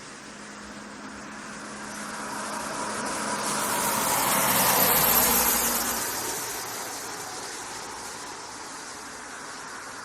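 Rush-hour road traffic at a roadside, with one vehicle passing close by: its noise swells to loudest about halfway through and then fades away.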